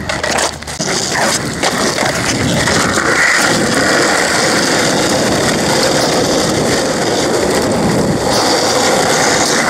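A few clacks of a skateboard hitting the pavement as it comes loose, then a steady rumble of skateboard wheels rolling over asphalt.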